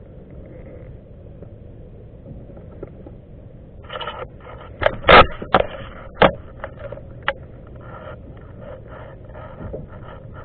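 Knocks and scrapes on a plastic fishing kayak while a landing net is worked over the side, over a low steady wash of water and wind. A quiet start gives way about four seconds in to a run of sharp knocks, the loudest near five seconds, then lighter quick taps.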